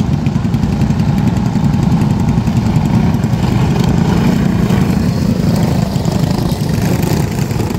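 Several dirt-track racing go-karts' small engines running hard as the pack passes through a turn, their notes overlapping and wavering up and down.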